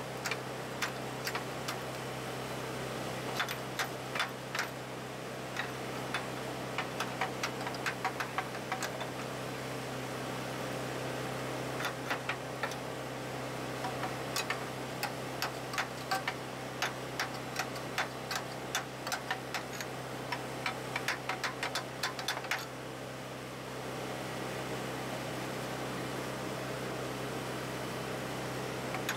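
Stick-welding arc crackling and popping in irregular spurts for about twenty-two seconds, then stopping. Under it an engine drones steadily.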